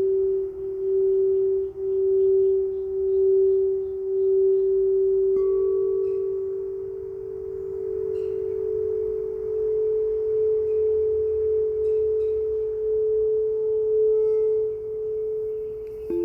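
Singing bowls ringing in a sustained, slowly pulsing tone. About five seconds in another bowl is sounded and the tone shifts slightly higher.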